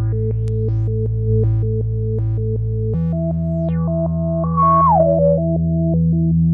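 Dave Smith Instruments Pro 2 synthesizer playing a sustained bass note under a repeating, rhythmically pulsed chord pattern. About three seconds in, the bass and chord shift to a new pitch, and a high lead note glides down around five seconds in.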